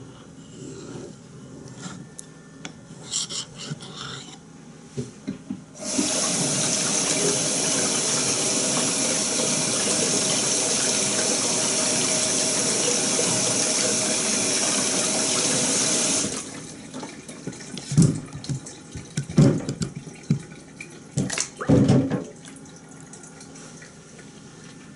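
Water running from a tap in a steady rush that starts abruptly about six seconds in and stops about ten seconds later, followed by a few short splashes and knocks.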